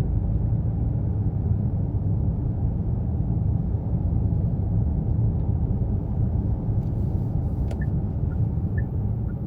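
Steady low rumble of a car moving along a city street, heard from inside the cabin: engine and tyre noise, with a few faint ticks near the end.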